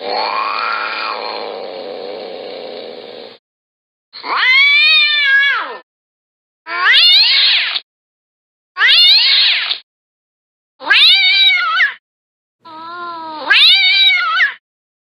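Recorded cat meows and yowls from a sound-effects library: a drawn-out call that fades over about three seconds, then five separate meows of about a second each, each rising and then falling in pitch, with clean silence between them.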